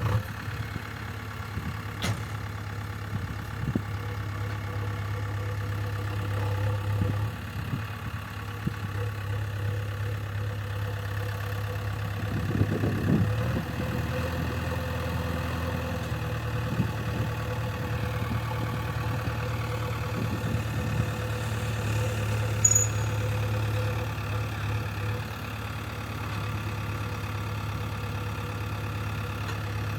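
JCB backhoe loader's diesel engine running steadily at idle, with a few short knocks along the way.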